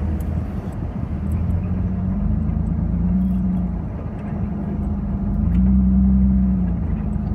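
A car driving, its engine note swelling and easing off twice over a steady low road rumble.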